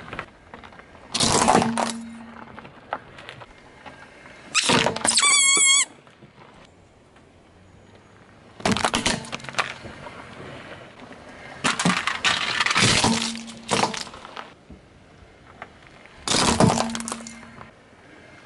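A car tyre rolling over and crushing a series of small objects, one after another: five loud bouts of cracking and breaking, one of them with a short wavering squeal about five seconds in.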